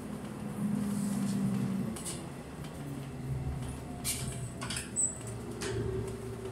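Inside a passenger train coach rolling slowly: a steady low running rumble and hum, with a handful of short clicks and creaks from the coach and wheels, and a brief high squeak about five seconds in.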